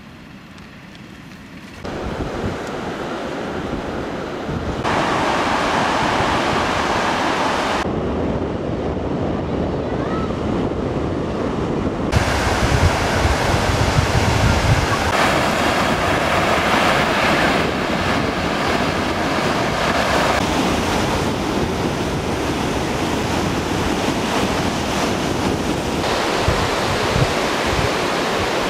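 Surf washing onto a sandy beach, mixed with wind buffeting the microphone. The sound jumps abruptly in level and tone several times.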